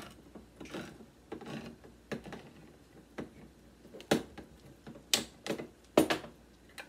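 Manual hand-crank can opener being turned around a metal can, its gears clicking and scraping in short, uneven strokes, about one or two a second, with the louder strokes in the second half.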